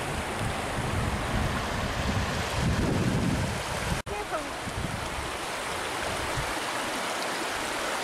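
Shallow stream rippling and splashing over stones, a steady rushing of water. A rumble in the low end during the first half suggests wind on the microphone. The sound breaks off for an instant about halfway through and resumes.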